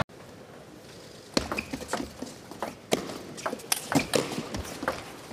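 Table tennis rally: sharp clicks of the ball off the rackets and the table, starting about a second in and coming irregularly, several a second.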